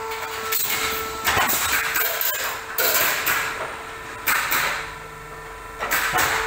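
Olimpia Chiodatrici T30 hydraulic pallet nailing machine working: about five sharp metallic bangs with bursts of hiss, one every second or so, over a steady hum.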